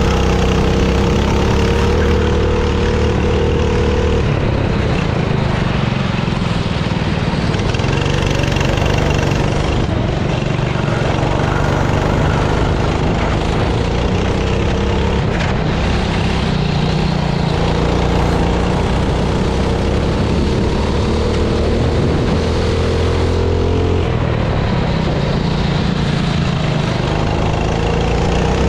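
Kart engine heard onboard, running at speed, its note falling and rising every few seconds as the kart lifts for corners and accelerates out of them.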